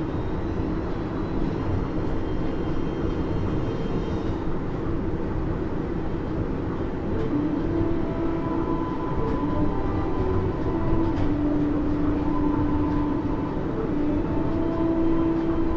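Running sound inside a Maihama Resort Line Series 10 (Type-X) monorail car, Hitachi-built with IGBT-VVVF traction control, travelling between stations. A steady rumble carries all the way through, and a few humming tones come and go in the second half.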